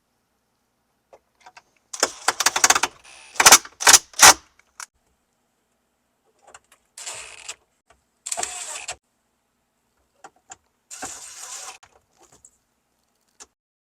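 Plastic dash trim being handled and pressed into place around a newly fitted car radio. A burst of sharp clicks and rattles comes about two seconds in, followed by three shorter scraping rustles.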